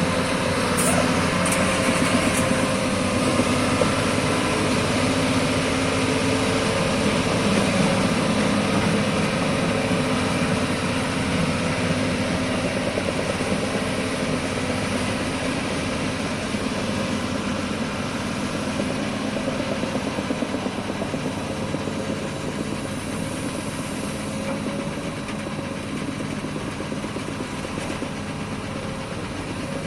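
Heavy construction machinery's diesel engines running steadily with a continuous hum, easing slightly in loudness toward the end.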